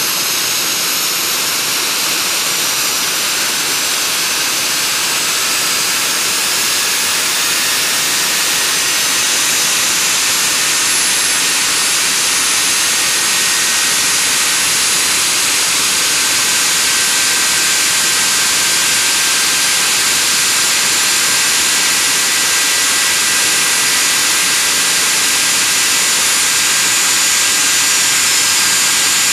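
Ivchenko-Progress AI-25TL turbofan running during a ground run-up: a loud, steady rushing jet noise with hiss, threaded with thin high whines that climb slowly over the first several seconds as the level edges up.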